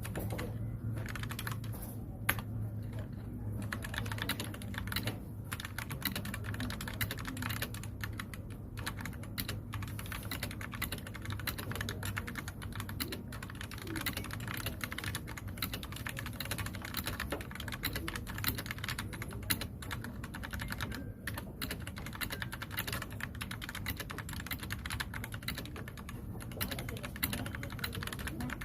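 Continuous fast typing on a KOODO Gecko 60% mechanical keyboard with Outemu switches: a dense, uneven patter of key clicks over a faint low hum.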